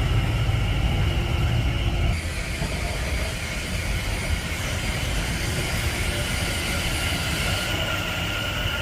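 A passenger train running through the station: a heavy low rumble that drops away suddenly about two seconds in, with thin, steady high-pitched tones from the wheels or running gear carrying on throughout.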